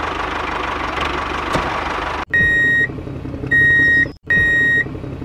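A small motor of a miniature DIY tractor running with a steady buzzing whir. About two seconds in it cuts off abruptly, and a vehicle reversing alarm beeps four times over a low engine idle.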